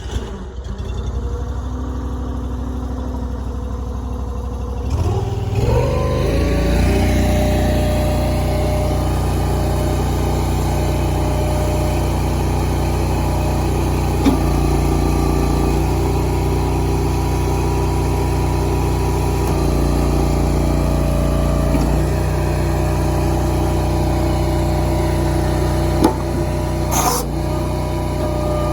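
Engine just started with a key, running; its speed rises about five seconds in, then it runs steadily, with a few short knocks later on.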